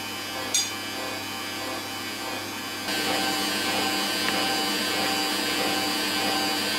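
Electric stand mixer running, its beater working butter cookie dough as flour is spooned in. A brief sharp sound comes about half a second in, and the mixer gets louder about three seconds in, with a faint regular pulse from then on.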